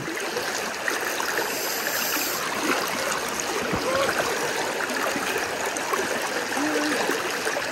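Steady rush of a river's flowing current, an even hiss of moving water with no distinct splashes or clicks standing out.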